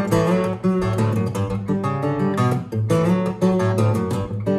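Martin OM-21 steel-string acoustic guitar played fingerstyle in dropped D tuning: a percussive instrumental, with plucked treble notes over a steady run of low bass notes, each note struck sharply.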